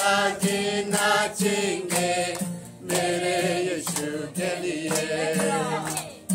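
A group of voices singing a gospel chorus together, with steady hand claps keeping time.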